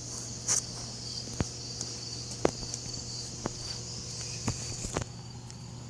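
Steady high-pitched chirring of insects such as crickets, with light knocks about once a second, like footsteps.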